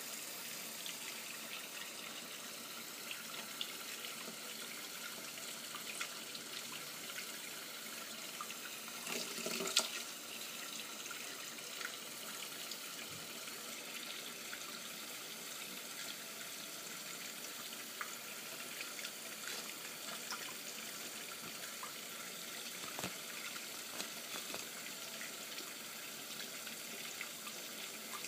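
Water running steadily from a tap, with a few faint knocks.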